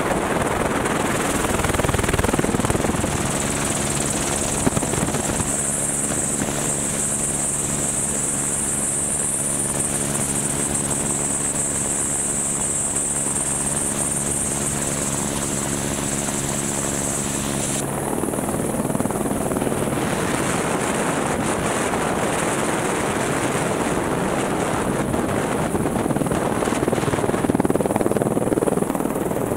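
Helicopter in flight: a steady rushing noise throughout, with an even multi-tone hum and a high whine that come in a few seconds in and cut off a little past halfway.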